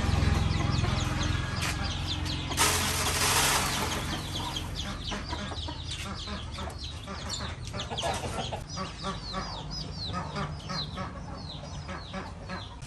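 Chickens clucking, with many high peeps from chicks and ducklings that become a rapid scatter of short chirps in the second half. A brief rush of noise comes about three seconds in.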